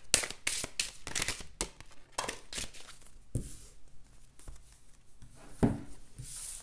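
Oracle cards being shuffled by hand: a run of irregular papery slaps and rustles, with two duller knocks, one about halfway and one near the end.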